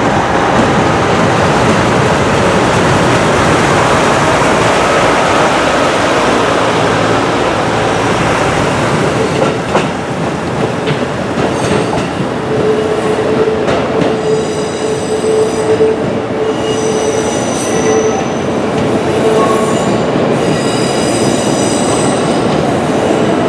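KIYA 95 diesel measuring train running on the rails. A heavy rumble of engine and wheels fills the first nine seconds or so, then it runs quieter, with high metallic wheel squeals that come and go through the second half.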